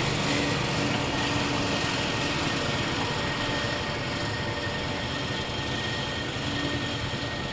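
Tractor pulling a fertilizer spreader across a field, engine and spreader running steadily with a faint high whine over the noise.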